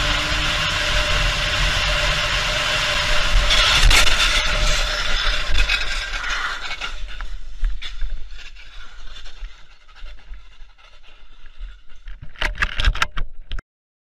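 Vehicle running at speed with steady road and wind noise, then a loud crash about four seconds in: a scraping, grinding slide with knocks that dies away over several seconds. A few sharp knocks come near the end before the sound cuts off.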